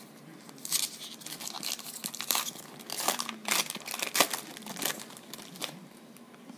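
Foil wrapper of a baseball card pack crinkling and tearing in irregular crackles for about five seconds, as the pack is opened.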